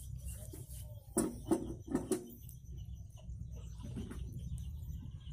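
Light metal clinks and scrapes as a chopper machine's steel blade assembly is slid back onto its drive shaft by hand, a few short knocks about a second to two seconds in, over a low steady hum.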